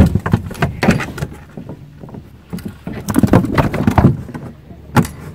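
Knocks and rattling clatter in a small boat on the water, in two bursts, with a single sharp knock near the end.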